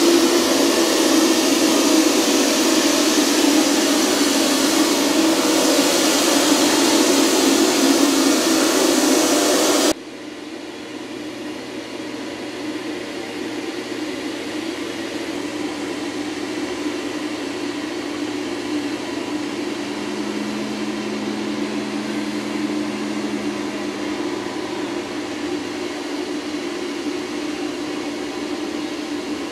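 Steady loud rushing roar of machinery beside the Boeing 747 Shuttle Carrier Aircraft. About ten seconds in it cuts to a quieter steady engine hum from the aircraft tow tractor, with a low drone that comes in past the middle and drops away a few seconds later.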